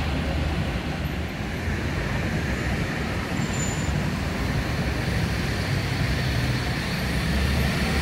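Steady road traffic noise, an even rumble of passing cars.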